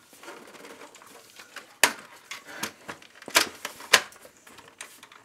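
Plastic front bezel of a desktop PC tower being pressed onto the metal chassis: several sharp plastic clicks and knocks as its clips seat, the loudest about two seconds in and just before four seconds.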